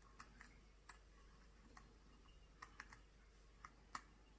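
Faint, irregular small clicks as a coin-cell watch battery is handled and fitted into the open back of a quartz wristwatch, with small metal parts tapping against the case.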